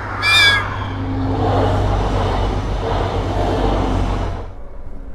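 A regional diesel train sounds a short horn blast as it nears a level crossing, then rushes past close by. The train's noise runs loud for about three seconds, then cuts off suddenly.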